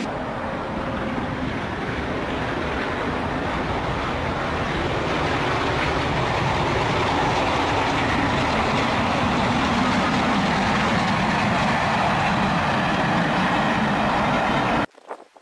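Steam-hauled passenger train passing, a steady, dense rush of locomotive exhaust and rolling wheels. The sound cuts off abruptly near the end.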